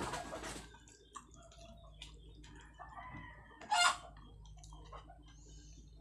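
Chickens clucking in the background, with one short, loud squawk about four seconds in. A brief noisy burst comes at the start.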